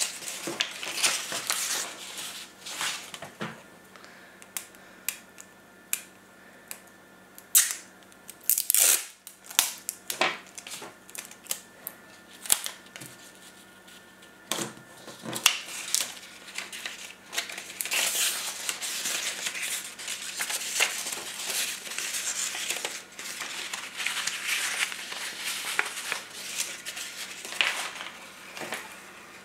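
Strips of paper rustling and crinkling as they are handled and bent into a loop, with scattered light clicks and taps throughout.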